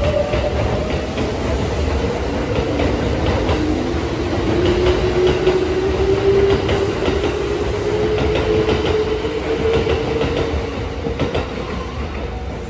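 Kintetsu electric commuter train pulling away past the platform, its motor whine rising slowly in pitch as it gathers speed, over the rumble of the wheels and sharp clicks as they cross the rail joints.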